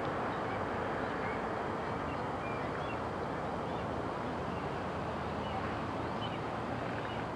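Steady outdoor background noise picked up by a camcorder microphone, with a few faint, short, high chirps scattered through it.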